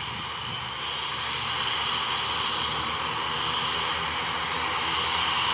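ATR 72-600's Pratt & Whitney PW127-series turboprop engines running after start: a steady high whine over a broad hiss, growing a little louder about a second and a half in.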